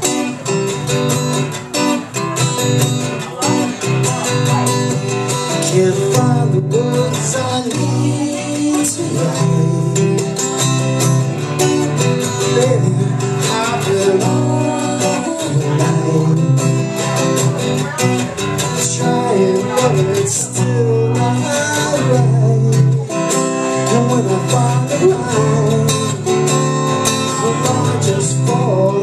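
Acoustic guitar strummed steadily, with a man's singing voice coming in over it a few seconds in.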